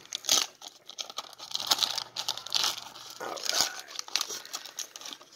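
Foil wrapper of a 1995 Upper Deck SP Motorsports card pack crinkling and tearing as it is opened by hand, with the cards inside being handled. The sound comes in irregular crackly bursts.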